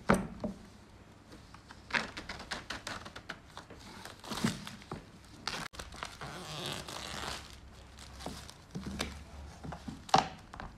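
Clear plastic wrapping being peeled off a canvas board by gloved hands: crinkling, crackling rustles throughout, with sharp cracks at the start and about ten seconds in.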